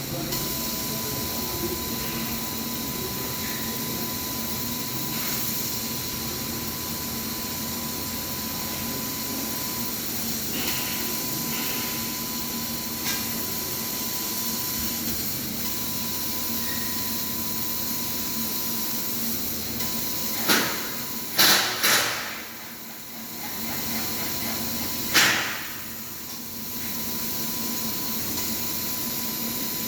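100-watt CNC laser cutter with rotary attachment running a PVC pipe cutting job: a steady hiss with a thin high whine that stops and restarts several times. About two-thirds of the way through come four short, loud hissing bursts.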